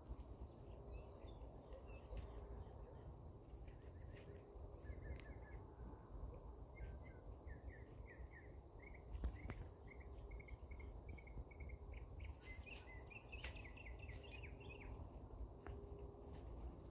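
Faint outdoor ambience: a low steady rumble, with a bird giving a run of short, repeated chirps from about five seconds in until about fifteen seconds, quickening near the end.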